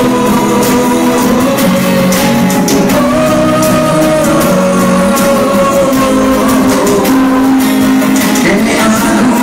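Music playing: a song with a singing voice and guitar over a steady beat.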